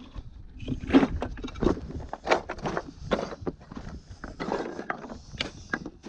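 A hiker's boots stepping on hard, wind-rippled snow, with trekking poles. The steps come at an irregular pace.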